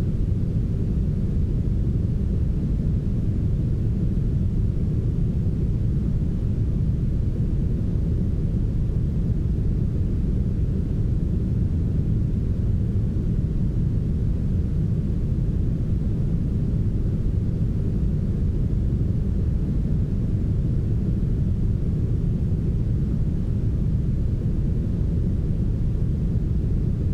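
Steady, heavily smoothed brown noise: an even, deep rushing hiss with almost no treble, unchanging throughout.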